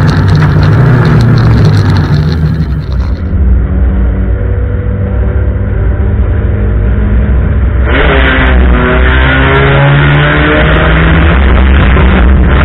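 Race car engines running hard in a heat race. About eight seconds in it gets louder, with an engine's pitch dipping and then climbing again as it revs.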